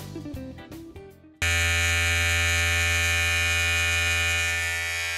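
Guitar music fading out, then about a second and a half in a sudden, steady electric buzz starts: mains-powered electric hair clippers running.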